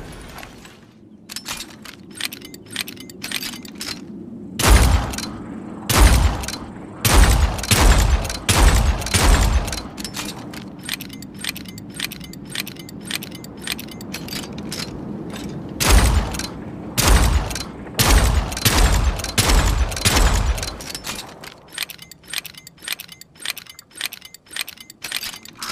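A .38 Colt revolver firing two strings of about six shots each, with many lighter metallic clicks of the revolver's action before, between and after the strings.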